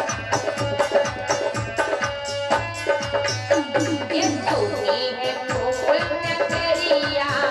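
Instrumental interlude of Indian devotional music: a quick, even hand-drum rhythm under held melody tones, with a gliding melodic line in the middle.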